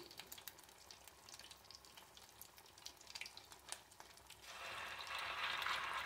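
Rice fritters frying in hot oil in a small saucepan: a faint crackle with scattered small pops. About four and a half seconds in, a spoonful of rice-and-egg batter goes into the oil and the sizzle swells into a much louder, steady hiss.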